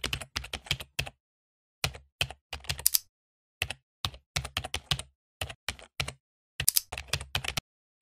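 Computer keyboard typing sound effect: quick, uneven runs of key clicks with two short pauses, one about a second in and one about three seconds in.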